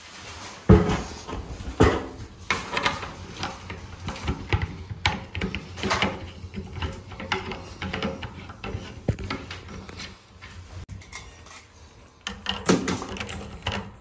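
Irregular clicks, knocks and light rattling of chrome shower fittings being handled and hand-threaded onto a shower arm, with two sharper knocks in the first two seconds.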